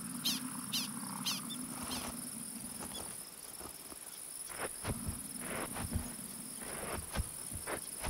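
Prairie grassland sound with a steady high buzz of crickets and other insects. In the first second and a half there are four quick, sharp, high chirps about half a second apart, the warning barks of black-tailed prairie dogs. Later come a few soft crunches.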